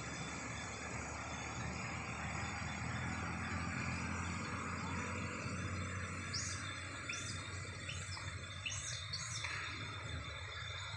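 A bird chirping repeatedly, short high falling notes about every half second in the second half, over a steady outdoor hiss of insects and distant noise with a low rumble early on.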